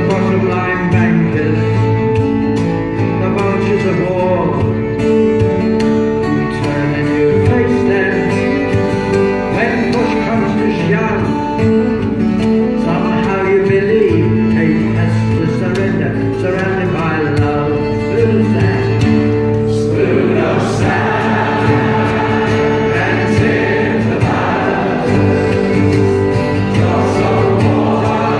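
Live acoustic folk song: men's voices singing over strummed acoustic guitars, with sustained accordion and vocal harmonies underneath. The sound fills out about twenty seconds in as more voices join.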